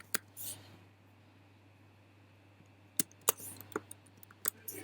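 A few sharp clicks from a computer keyboard and mouse while code is edited: one near the start, then a small cluster in the last two seconds, over a low steady hum.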